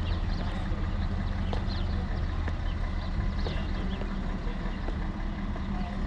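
Steady low hum of an engine idling, with short bird chirps now and then.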